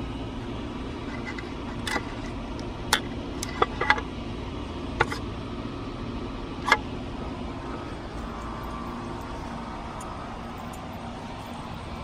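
A few sharp plastic clicks from a GFCI outlet being reset in an outdoor weatherproof box: buttons pressed and the cover handled, bunched between about two and seven seconds in. A steady low machine hum runs underneath.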